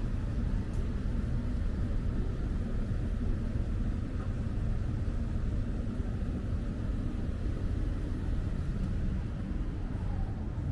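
Wind buffeting the microphone: a steady low rumble that flickers up and down in level, with faint outdoor background noise behind it.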